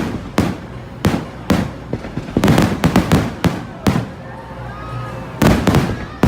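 Fireworks display: aerial shells bursting in a series of sharp, echoing bangs. A rapid cluster of bursts comes in the middle, and two heavy bangs come near the end.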